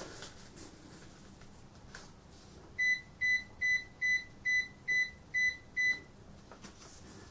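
Sam4S ER-900 series cash register keyboard beeping eight times, one short high beep per key press, about two and a half a second, as eight spaces are keyed in. The beeps start about three seconds in.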